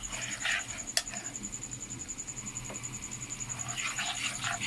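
Chopped onion and garlic sizzling in butter and oil in a kadhai, stirred with a wooden spoon in scraping strokes near the start and again near the end. A sharp tap comes about a second in.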